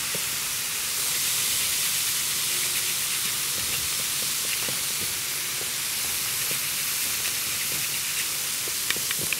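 Chicken pieces sizzling steadily as they fry in a pan on a gas hob, with a few small utensil clicks near the end.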